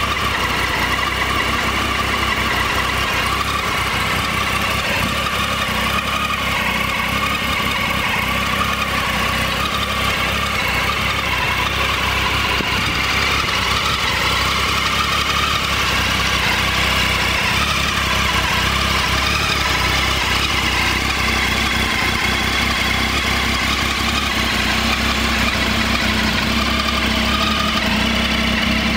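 Triumph Tiger 800 XRT's inline three-cylinder engine idling steadily.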